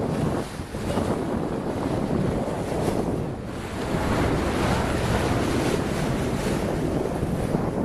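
Wind buffeting the microphone over the rush of water churned by a moving boat's bow. The noise is steady and dips briefly twice.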